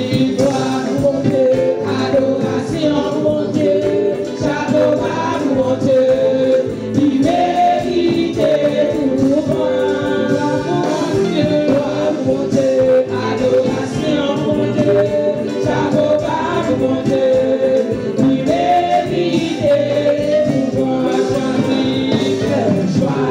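A church choir singing a gospel song with a steady beat of accompanying percussion and instruments.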